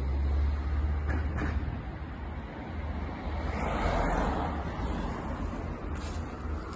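A car passing on the street, its tyre and engine noise swelling and fading about four seconds in, over a steady low rumble.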